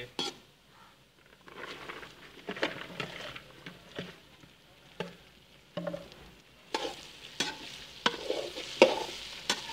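Chopped okra going into a hot aluminium kadhai of onion-tomato masala and frying with a sizzle, stirred with a metal slotted spatula that scrapes and knocks against the pan. Scattered knocks at first, then thicker, louder scraping strokes in the last few seconds.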